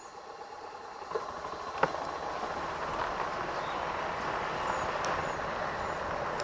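Golf cart driving over gravel, its tyres crunching on the loose stones, the noise growing louder over the first couple of seconds and then holding steady. A single sharp knock comes a little under two seconds in.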